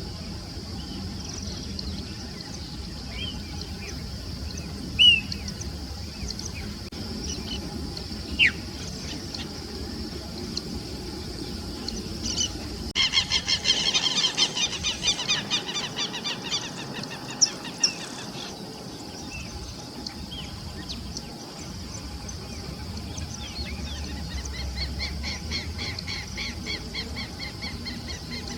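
Plain-crested elaenia calling: a few short single notes, then a loud rapid chattering run lasting about five seconds, and a softer rapid run near the end. A steady high-pitched hum runs underneath.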